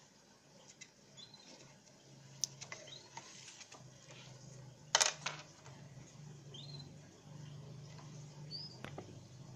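Light clicks and knocks from a wristwatch and its cardboard box being handled, the sharpest about halfway through. Short high chirps come every couple of seconds over a low steady hum.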